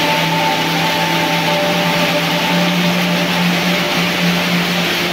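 Heavy rain falling as a steady hiss, with rain drumming on corrugated metal roofing and dripping off the eave. A steady low hum runs underneath.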